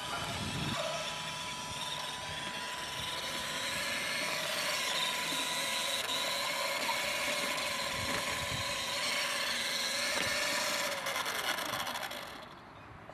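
Electric drive motor and gearbox of a radio-controlled Pegaso 1086 model truck running as it drives, a steady mechanical whine with a few fixed tones. It falls away near the end.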